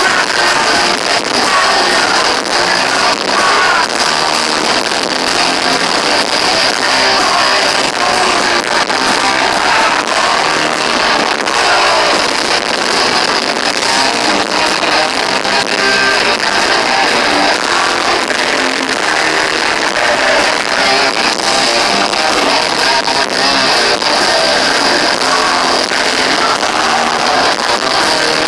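Heavy rock band playing live, with loud distorted electric guitars, drums and some singing, recorded from the crowd. The sound is harsh and overloaded, thin in the bass.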